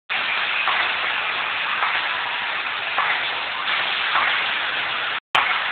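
Steady rushing noise with no distinct tones. It cuts out to dead silence for a moment near the end and comes back with a click.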